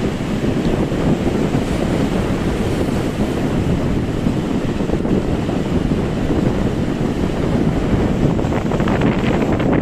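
Strong wind buffeting the microphone as a steady low rumble, over the continuous wash of sea surf on the shore; it turns gustier and crackly near the end.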